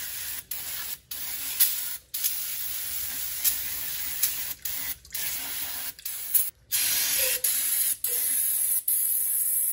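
Aerosol brake cleaner hissing as it is sprayed into an open differential housing onto the ring gear and carrier, in a string of bursts about a second long with brief breaks between.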